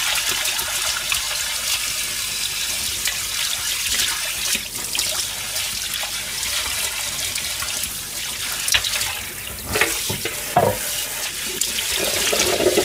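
Kitchen tap running into a stainless steel sink, the stream splashing into a metal bowl as things are rinsed under it. A few knocks come between about nine and eleven seconds in.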